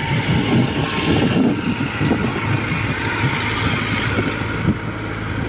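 Diesel engines of a Kubota DC-105X rice combine harvester working through lodged rice, with a tracked grain carrier running nearby. The running noise is steady, and a low hum grows stronger about halfway through.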